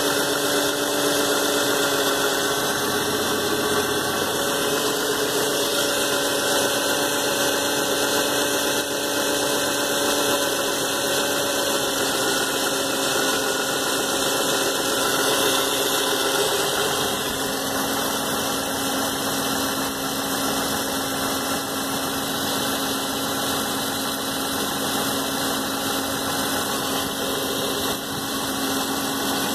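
2007 Nissan Maxima's 3.5-litre V6 running at idle with a steady humming whine made of several held tones. The alternator has just been replaced, so the owner rules it out as the source of the noise.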